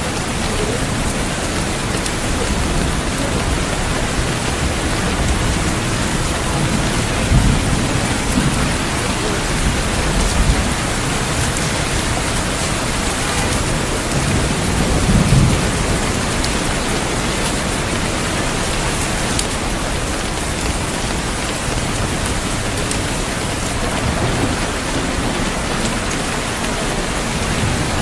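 Steady heavy rain pouring down in a thunderstorm, with a few low rumbles of thunder, the strongest about halfway through.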